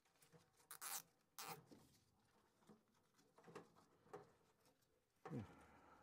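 Faint rustling and rubbing of gloved hands handling a bundle of wires, with a few short scratchy sounds and a brief creak that falls in pitch near the end.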